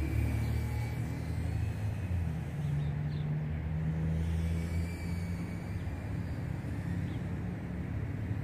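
Steady low outdoor rumble with a faint high whine of a micro FPV quadcopter's brushless motors flying at a distance. The whine rises and falls gently in pitch as the throttle changes.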